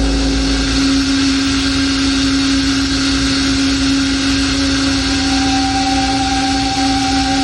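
Lo-fi black metal: a dense wall of distorted guitar noise over a steady held low note, with a second, higher held note joining about five seconds in.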